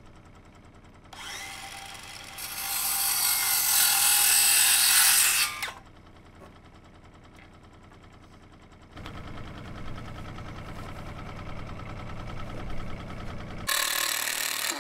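Cordless circular saw spinning up and cutting through a wooden post for about three seconds, then winding down. Near the end, a short burst from a cordless impact driver driving a screw.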